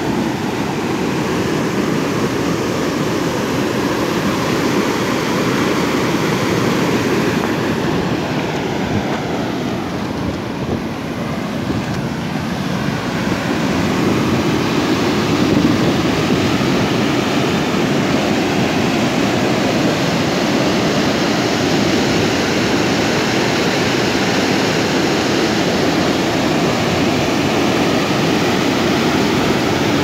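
Water pouring over a concrete weir and crashing into the churning pool at its foot: a loud, steady rush that grows a little louder about halfway through.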